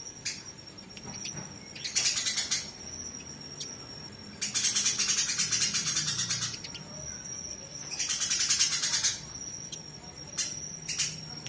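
Eurasian tree sparrows (burung gereja) giving fighting chatter: three dense, high, rapid bursts of chirps, each up to about two seconds long, with a thin steady high tone in the gaps between.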